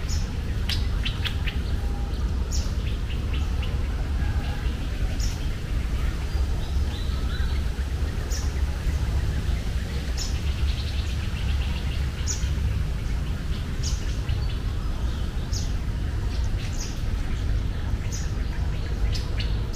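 Bird chirping, short high calls repeating about every second and a half, over a steady low rumble.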